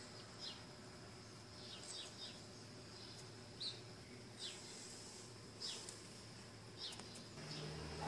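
Small birds calling faintly, a scatter of short high chirps that each fall in pitch, about eight in all, over a steady high insect buzz.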